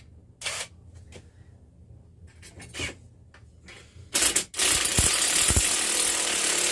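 A screw being driven into the wall with a rattling, ratcheting sound: a couple of short bursts, then about three seconds of continuous loud driving starting in the second half, with a couple of low knocks.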